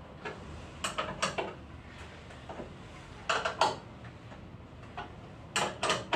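Metal hand tool clinking against the metal parts inside an espresso machine's frame, as three pairs of sharp clinks about two seconds apart.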